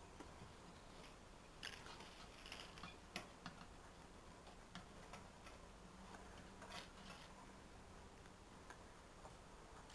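A few faint, scattered clicks and light scrapes of thin wire being handled and twisted into a wire frame, over quiet room tone.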